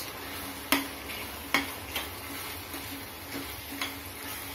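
Chopped vegetables in sauce sizzling in a stainless steel frying pan while a spatula stirs them, knocking sharply against the pan a few times.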